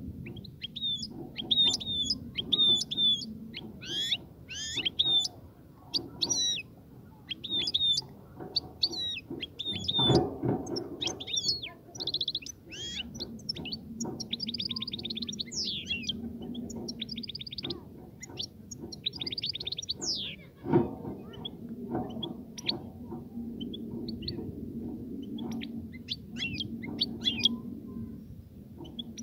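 European goldfinch song: a long run of twittering chirps and slurred notes broken by fast, buzzy trills, the song used to stimulate a female goldfinch to breed. A low steady hum lies beneath it, and two sharp knocks sound about ten and twenty-one seconds in.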